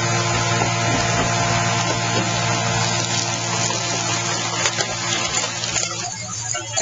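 Orca car baler's hydraulic power unit running with a steady low hum and a dense hiss, with a few faint clicks. The hiss thins out about six seconds in while the hum carries on.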